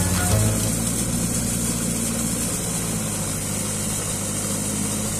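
Diesel tractor engine running at a steady speed under load while tilling with a rotavator.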